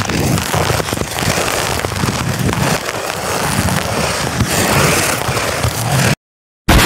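Ice skate blades striding and scraping over natural lake ice, making a continuous crackling, hissing scrape. The sound cuts out completely for about half a second near the end, then resumes.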